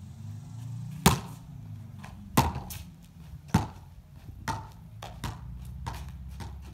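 Overhand volleyball serve: a sharp slap of the hand on the ball about a second in, then the ball bouncing on concrete, the bounces coming quicker and fainter as it settles.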